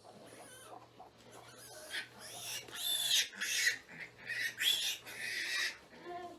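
Piglets squealing: several short, high-pitched squeals, starting about two seconds in.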